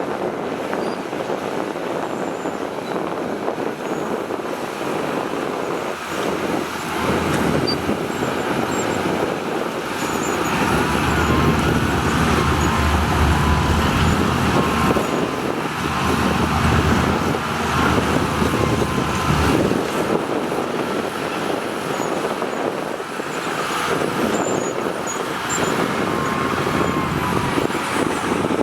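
Heavy diesel construction machinery running under load, a steady engine rumble. It gets louder and deeper about a quarter of the way in.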